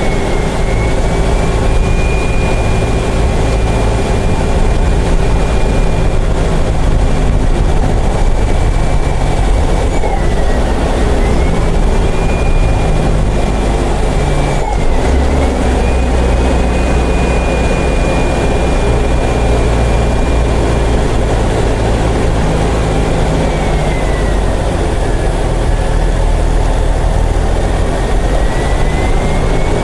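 Mercedes-Benz OF-1418 bus's six-cylinder turbodiesel running under load while driving, loud and steady. A high whine over the engine drops and climbs back several times as the revs change through acceleration and gear changes.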